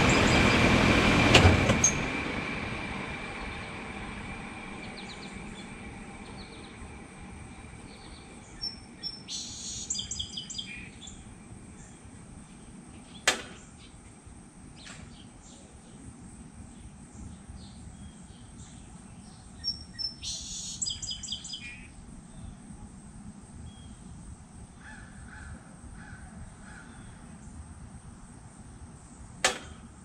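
Rheem Classic 14 SEER three-ton central air-conditioner condenser running, then shutting off with a click about a second and a half in; its noise drops and fades over the next several seconds as the fan coasts down. Birds chirp twice afterwards.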